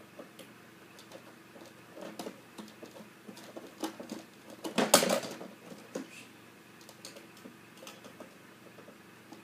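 Small clicks, taps and scrapes of printer parts being handled during disassembly, with a louder short clatter about five seconds in.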